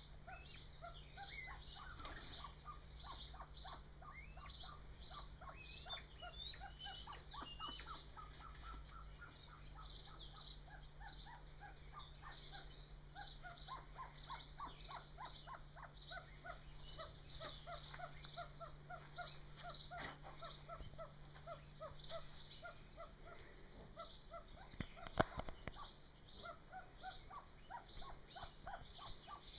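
Golden pheasant hens and chicks calling: a long, steady run of short, rapid peeps and soft clucks in quick series. A single sharp knock comes about 25 seconds in.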